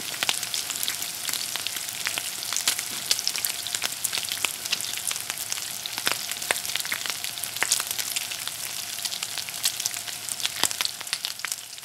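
Hot oil in a cast-iron skillet sizzling and crackling as milk and then water are poured over browned round steak. The crackling thins out near the end.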